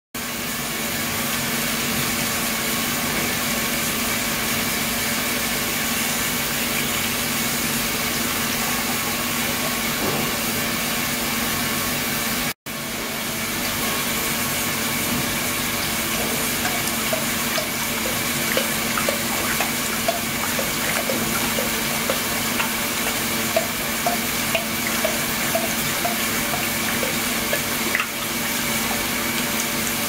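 Water flowing in a steady stream into a stainless-steel tank of water, a constant splashing rush with a steady hum underneath. Light ticks come through over the second half.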